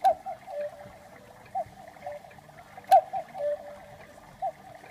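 Chalet-style cuckoo clock calling its two-note cuckoo, a higher note then a lower one, about four times roughly every one and a half seconds, with sharp clicks from the mechanism.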